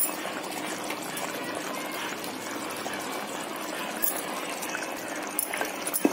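Minced mutton kheema bubbling steadily in its watery gravy in an open pressure cooker, with a light knock right at the start.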